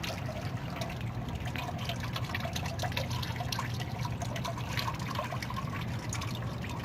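Oil filter freshly removed from an engine with a severe knock, giving off a dense, fine crackling over the sound of liquid. The mechanic doesn't think it is supposed to sound like that. A steady low hum runs underneath.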